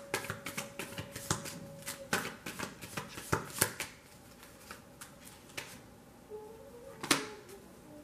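Tarot cards being shuffled and handled: a quick run of card flicks and clicks for about four seconds, then quieter, with one more sharp card snap near the end.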